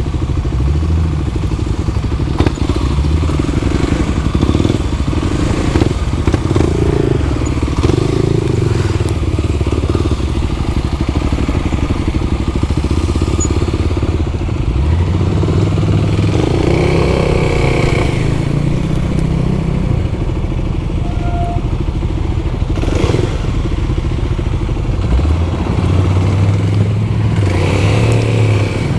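Kawasaki KLX dual-sport motorcycle's single-cylinder four-stroke engine at low town speed, heard from the rider's seat, its note rising and falling with the throttle, with longer climbs about halfway through and near the end.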